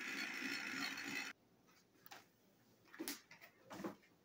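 Battery-powered TrackMaster toy train engine's motor and gears whirring, cutting off abruptly about a second in. After that, a few soft knocks.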